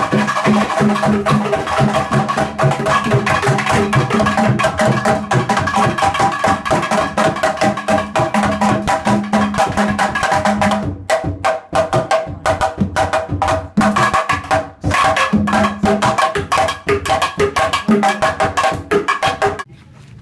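Yoruba bàtá drum ensemble playing a fast, dense rhythm, with several drums striking together; about halfway through the strokes become sparser and sharper. The drumming cuts off abruptly just before the end.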